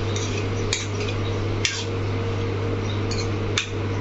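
Sliced pointed gourd sizzling steadily in oil in a pan while a spoon stirs it, clicking sharply against the pan four times. A steady low hum runs underneath.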